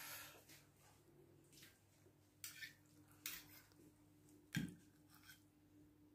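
Faint, sparse clinks and scrapes of a metal fork and spoon against a ceramic pasta plate as spaghetti is twirled and plated, with one slightly louder knock a little past halfway. A faint steady hum runs underneath.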